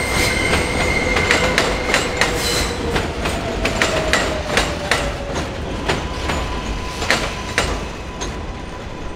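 NYC subway L train passing on a curved elevated track: steel wheels squeal on the curve, with a steady high tone and a lower one that slides down in pitch, over repeated clicks of wheels crossing rail joints. The clicks thin out and the sound fades near the end as the last car goes by.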